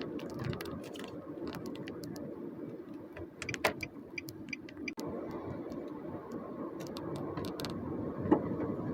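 Car driving: steady engine and road noise, with scattered light clicks and ticks over it.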